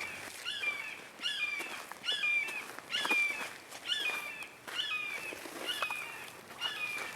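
Songbird singing, repeating one short chirping phrase about nine times, a little under once a second.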